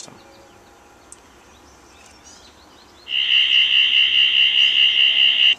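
Custom sonic screwdriver replica's built-in sound system, switched by a magnet and reed switch, sounding a loud, high electronic whine that warbles rapidly, about eight pulses a second. It starts about three seconds in, lasts about two and a half seconds and cuts off suddenly.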